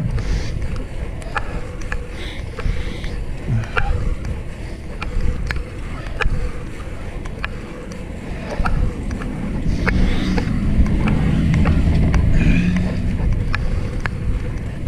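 Wind rushing over the camera microphone and tyre noise on asphalt while riding a fixed-gear bike, with scattered sharp clicks and rattles. It grows louder for a few seconds about two-thirds of the way through.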